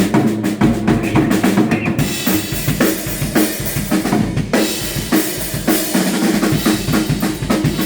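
Drum kit played hard and fast: quick kick-drum and snare strokes, with crashing cymbal wash coming in about two seconds in and again after a short break near the middle.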